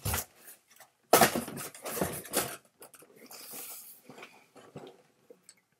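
Large cardboard LEGO set box being handled: a loud thump with rustling about a second in, then sliding, rustling noises and scattered light knocks.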